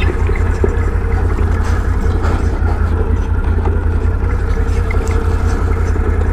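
Can-Am Renegade 1000 ATV's V-twin engine running steadily under way, with an even low rumble.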